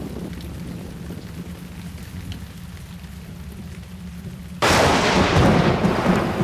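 Rain and wind noise on the camera microphone: a low rumble at first, then, about four and a half seconds in, a sudden change to a much louder, full hiss of rain.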